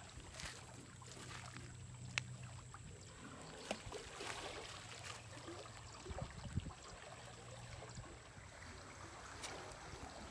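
Faint outdoor ambience of flowing canal water: a soft even hiss under a low steady hum that drops out for a few seconds in the middle, with a few small clicks and soft thumps.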